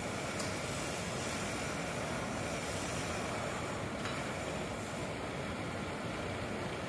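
Steady rushing background noise, with a faint click about half a second in and another about four seconds in.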